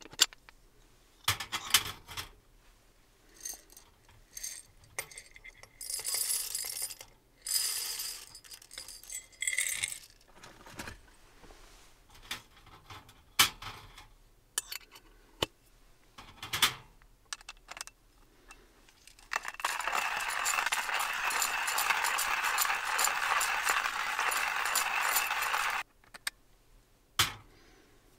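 Hand-cranked coffee grinder being handled, with scattered metal clinks and taps, then about six seconds of steady gritty grinding that starts about two-thirds of the way in and stops abruptly.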